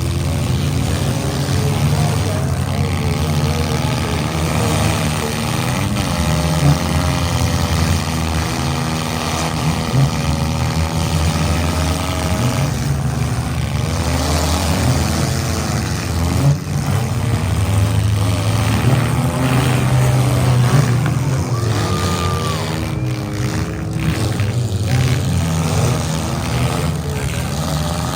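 Several demolition derby cars' engines running and revving up and down together, with a few sharp knocks from hits partway through.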